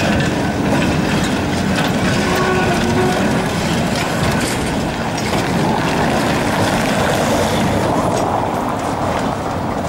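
Vintage two-car museum tram, motor car 2272 and trailer 1419, running past close by on street track, its steel wheels clattering over the rails.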